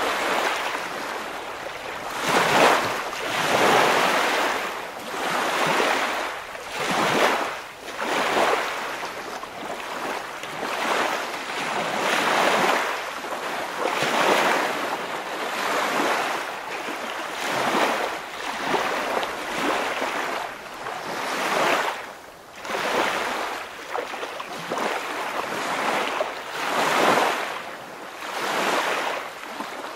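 Waves washing in repeated surges about every one and a half to two seconds, a hiss of moving water that rises and falls.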